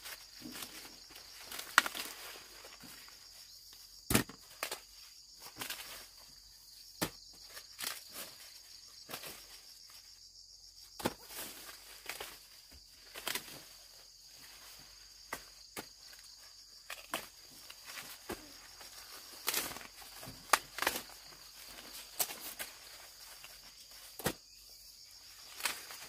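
A steady high insect drone, with scattered rustles and sharp snaps or knocks of handling and footsteps, a few of them much louder than the rest.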